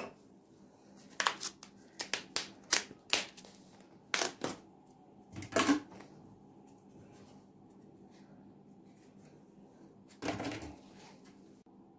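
A run of short sharp clicks and rustles, then a few separate taps and a last rustle near the end: plastic spice packets and containers being handled and emptied into a glass bowl.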